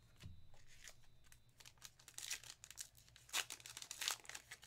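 A trading-card pack's wrapper being crinkled and torn open in several sharp rustles, starting about two seconds in, after a few faint clicks of cards being handled.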